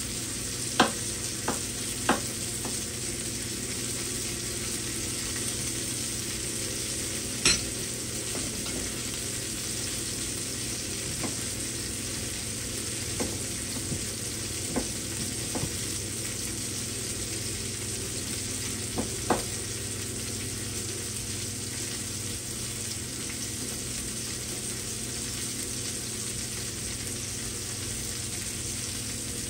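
Sockeye salmon fillet sizzling steadily in an oiled skillet, with a few sharp pops or clicks scattered through, the loudest in the first couple of seconds and one about seven and a half seconds in.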